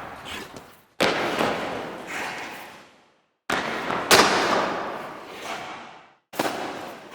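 Ice hockey impact sound effects played one after another: sudden hits at about one, three and a half and six and a half seconds in, each ringing and dying away over one to two seconds. A sharp crack about four seconds in is the loudest.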